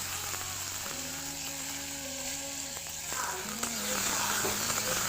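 Chopped onion and tomato frying in hot mustard oil in a kadai: a steady sizzle.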